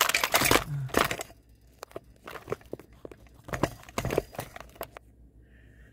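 Handling noises: crinkling and rustling with scattered clicks and knocks, busiest in the first second, then thinning out and stopping about five seconds in.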